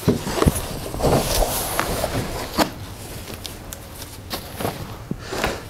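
Plastic wrapping rustling and cardboard box flaps scraping as a flat-screen TV in its plastic cover is lifted out of its carton, with a few sharp knocks in the first three seconds.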